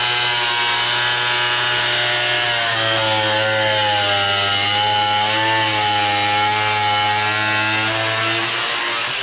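Background music: one long, loud, distorted chord held steady, its pitch shifting slightly about three seconds in and wavering a little after.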